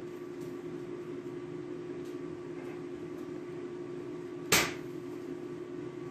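A steady low hum runs throughout, under quiet handling of canvas being hand-sewn, with a few faint ticks. One sharp knock about four and a half seconds in is the loudest sound.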